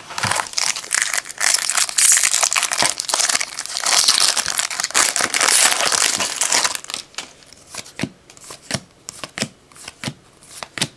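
Foil wrapper of a trading-card pack being torn open and crinkled for about seven seconds, then a few short soft clicks of cards being handled.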